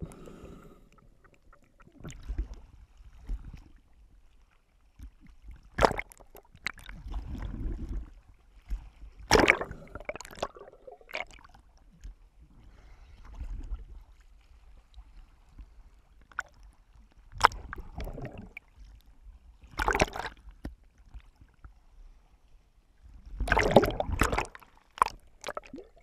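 Seawater sloshing and splashing against a waterproof camera housing as it bobs at the surface, dipping in and out of the waves. The sound comes in irregular splashy bursts, muffled through the housing, with quieter stretches between.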